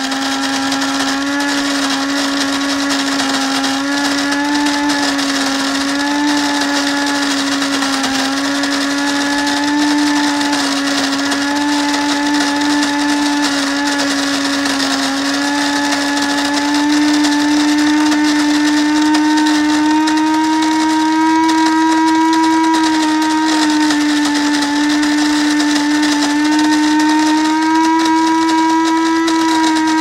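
Cuisinart Supreme Grind automatic burr mill grinding whole coffee beans: a steady electric motor whine over the hiss of beans being ground, its pitch creeping slowly upward.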